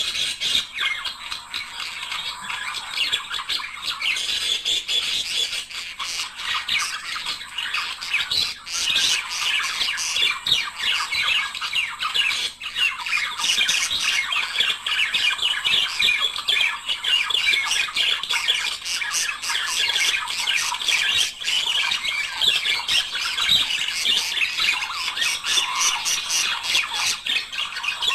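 Budgerigars chattering and warbling continuously, a dense stream of rapid squawks and chirps from more than one bird, the kind of song played to encourage budgies to breed.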